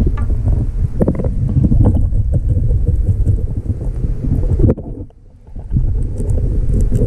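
Underwater camera noise: a low, uneven rumble of water moving past the camera housing as a freediver swims over the seabed, with scattered knocks and clicks. It drops away for about a second around five seconds in.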